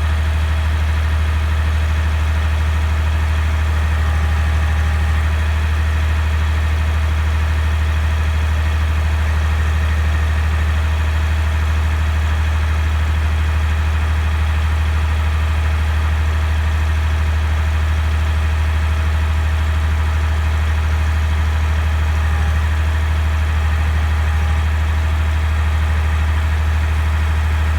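Tractor engine running steadily at a constant speed, powering a three-point-hitch backhoe.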